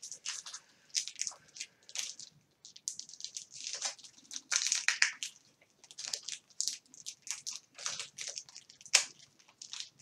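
A candle's wrapping being crinkled and pulled at by hand, trying to get it off: a run of short, irregular crackles.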